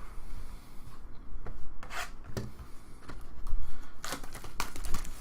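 Trading cards and their packaging being handled: rubbing and sliding scrapes, with sharper scrapes about two seconds in and again near the end.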